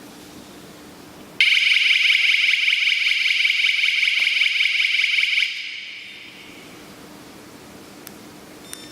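Home alarm system's electronic siren sounding: a loud, shrill tone with a rapid flutter. It starts abruptly about a second and a half in, lasts about four seconds, then dies away. The alarm is responding normally, with no interference on its radio link.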